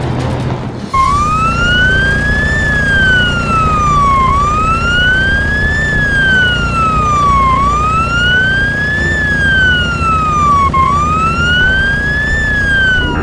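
Wailing siren, starting about a second in: its pitch slowly rises and falls about every three seconds, four times, over a steady low engine rumble.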